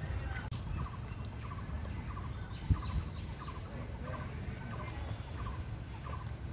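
A bird calling over and over, each call a quick run of three short notes, about three calls every two seconds, over a low background rumble. A single thump comes a little under three seconds in.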